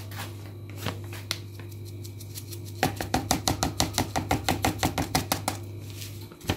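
Rapid light tapping on a packet of ground black pepper to shake the pepper out over a bowl, about six taps a second for a few seconds. A steady low hum runs underneath and stops near the end.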